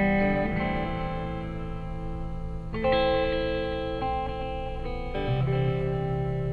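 Guitar music: slow, sustained chords, with a new chord struck about three seconds in and again about five seconds in, each left to ring out. The chords belong to a C–Am–F–G progression.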